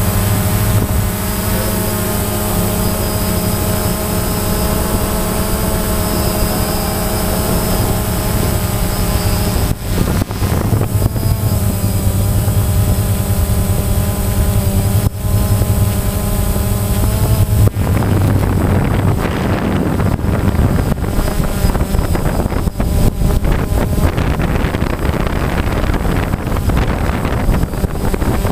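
DJI Phantom quadcopter's motors and propellers whining steadily as heard from the drone itself, the pitch wavering slightly as it flies. A little past halfway the steady tones give way to a rougher rushing noise, like air buffeting the microphone.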